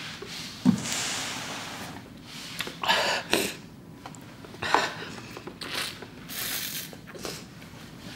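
A person's short, sharp, hissing breaths and sniffs, about six of them, through a mouth burning from extremely spicy noodles, with a low knock near the start.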